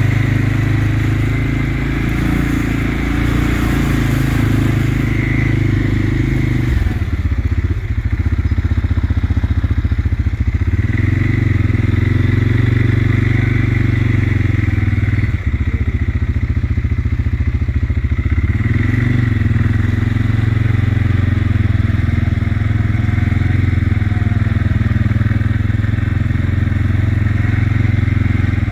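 An engine running steadily and loudly, its low note dipping and shifting several times, with a faint crackle over it.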